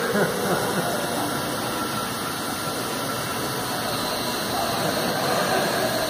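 Steady whirring of small electric model J3 Cub airplanes' motors and propellers in flight.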